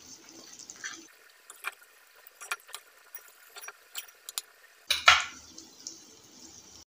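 A metal spoon scoops thick curry in an aluminium cooking pot, making a run of light clicks and scrapes against the pot. About five seconds in it strikes the pot with a loud clank that rings briefly.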